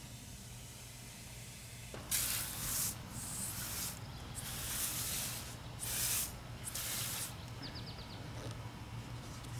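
Water spraying from a garden hose nozzle in about five short hissing bursts, each lasting around half a second to a second, starting about two seconds in and stopping a couple of seconds before the end.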